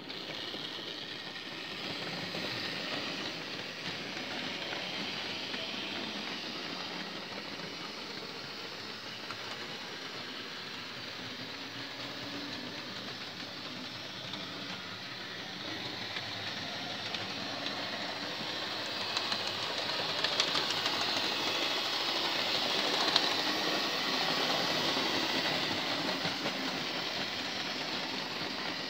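Hornby OO-gauge model trains running on the layout: a steady rattle of small wheels on metal track, growing louder with a few sharp clicks over rail joints and points about two-thirds of the way through.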